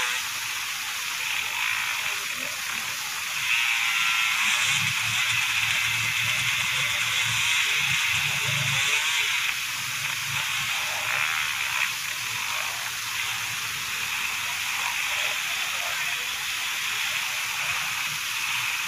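Dirt bike engines revving unevenly as riders fight up a steep, muddy climb, with people's voices mixed in. The sound swells for several seconds from about three and a half seconds in.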